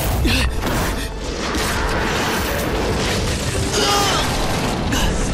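Fight-scene sound effects from an animated series: dense crashing and heavy impacts over background music.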